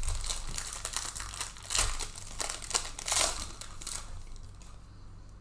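Plastic crinkling and rustling in bursts for about four seconds, loudest twice, then dying down: thin plastic card bags or packaging being handled.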